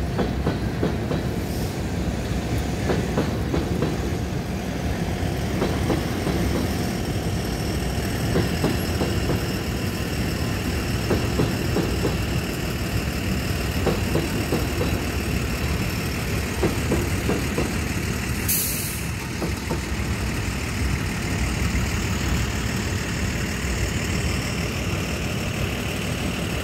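Norfolk Southern rock train's hopper cars rolling past a road crossing: a steady low rumble of steel wheels on rail, with scattered faint clicks from the wheels crossing rail joints.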